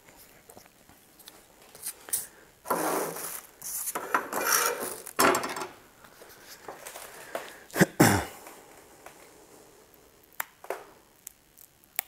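Hands handling small objects on a workbench: a few rustles and scrapes about three to five seconds in, then a couple of sharp clicks, and scattered light taps near the end.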